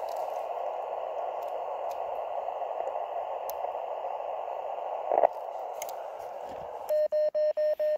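Receiver hiss from a (tr)uSDX QRP transceiver's speaker, a narrow band of noise through its CW filter, with a single click a little past five seconds. About seven seconds in, the radio's Morse sidetone starts: one steady pitch keyed in quick, even beeps as it transmits.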